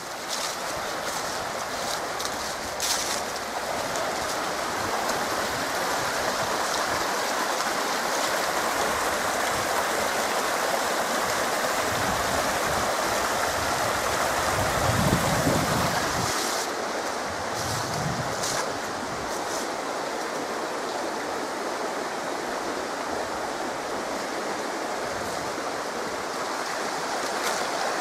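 A fast-flowing rocky stream rushing over stones, a steady rush of water, with a low rumble swelling for a few seconds about midway.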